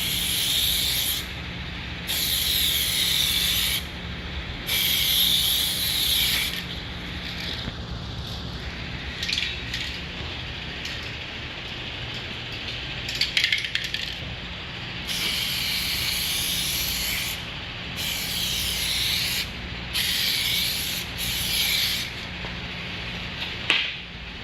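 A sprayer laying a coating onto a scuffed plastic headlight lens. It hisses in repeated passes of one to two seconds each, about seven in all, with pauses between them and a couple of sharp clicks.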